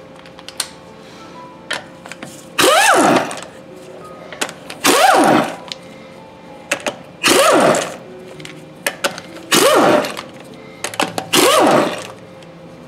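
Impact wrench undoing the five wheel bolts: five short bursts about two seconds apart, each winding up in pitch and then dying away as a bolt breaks loose and spins out.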